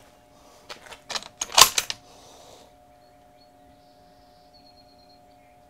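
A Ruger Precision Rifle being handled and settled onto a bag on a wooden barricade as the shooter builds position: a quick run of clicks and knocks, the loudest about a second and a half in. After that there is only a faint steady hum.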